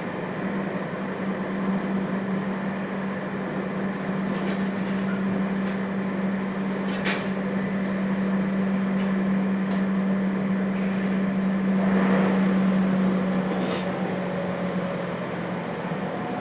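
Interior running noise of a thyristor phase-controlled JR Hokkaido 721 series electric train, recorded in its motor car: a steady electrical hum over wheel-on-rail noise, with a few sharp clicks. The hum weakens near the end.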